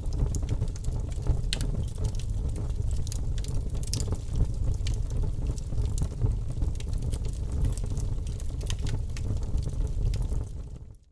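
Wood fire crackling in a fireplace: a steady low rumble of burning with irregular sharp pops and snaps, fading out to silence right at the end.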